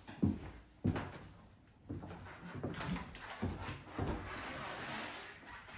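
A bicycle being lifted, turned around and set back down by hand: a series of knocks and clunks, with rattling and rustling in between.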